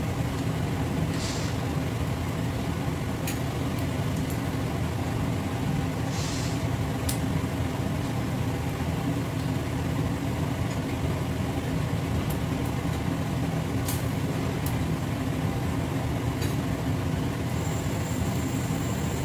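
Metal spatula stirring meat in a steel frying pan of brown sauce, with a few light clicks against the pan, over a steady low hum.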